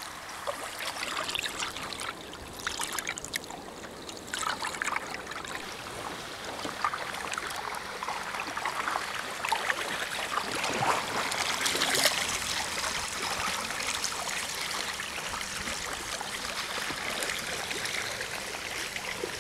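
Kayak paddles dipping into river water: irregular small splashes with water trickling and dripping off the blades.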